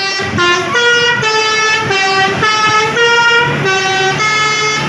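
Bus telolet horn, a multi-tone musical air horn, playing a tune: a quick run of about nine held notes stepping up and down in pitch with no breaks between them.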